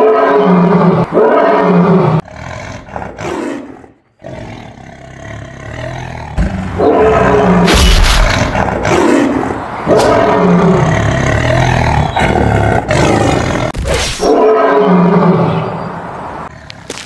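Big-cat roars and growls, one after another, loud and drawn out. There is a brief break about four seconds in, and the sound fades near the end.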